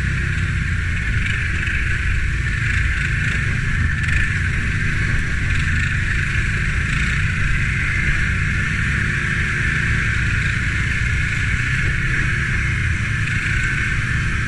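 Can-Am quad ATV engine running steadily as the machine rides along at an even pace, heard on board, with a steady hiss over it.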